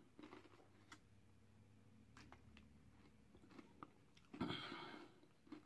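Faint chewing of a crunchy oat granola bar, with scattered small mouth clicks and a louder stretch of chewing about four and a half seconds in.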